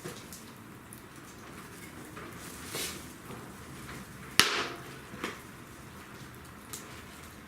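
A single sharp knock or crack about four seconds in, with a few softer knocks before and after it, over a low steady background.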